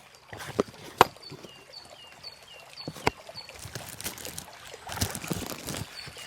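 Sharp clicks and knocks, loudest about a second in and again about three seconds in, over trickling water, with short falling bird chirps repeating every half second or so.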